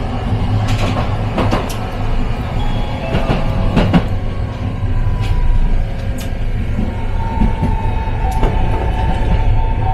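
Toden Arakawa Line streetcar running: a steady low rumble with scattered sharp clicks from the wheels over the track. About seven seconds in, a steady whine joins it.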